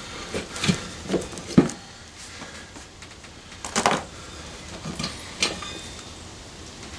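A few scattered knocks and clunks of tire-changing work: metal tire spoons, rim savers and the tire being handled against a motorcycle wheel rim, the loudest knock a little under four seconds in.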